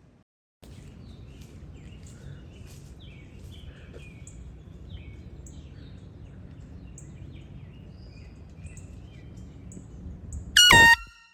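Birds chirping over outdoor background noise, then near the end one short, very loud blast of a handheld air horn that cuts off suddenly.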